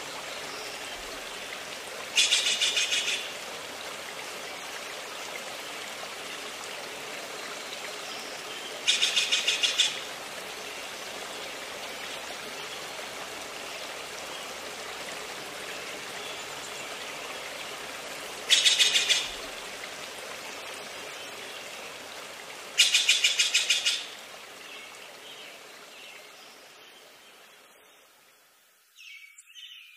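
Forest ambience: a steady rush of running water with a songbird giving a fast, rattling trill four times, each about a second long. The water sound fades out over the last few seconds.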